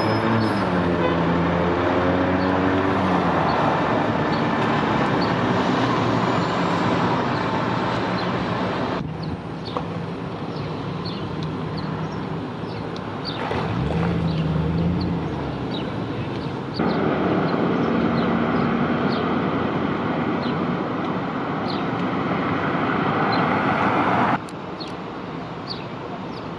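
Street traffic noise with vehicles passing, one engine note falling in pitch as it goes by near the start. The background changes abruptly several times.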